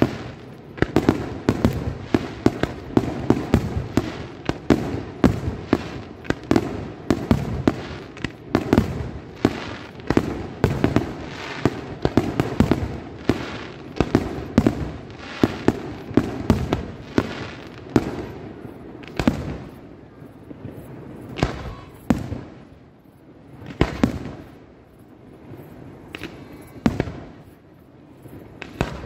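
Aerial firework shells bursting in a rapid barrage of bangs, thinning out after about two-thirds of the way through to single bursts every couple of seconds.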